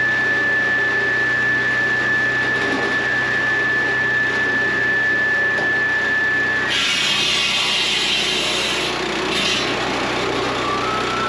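Petrol-engined swing saw running with a steady high whine. About seven seconds in, its circular blade bites into a firewood log: there are a couple of seconds of loud cutting noise, and the whine drops under the load. After a second short bite the blade comes free and the whine climbs back up.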